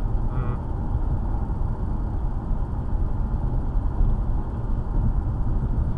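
Car interior road and engine noise while driving: a steady low rumble.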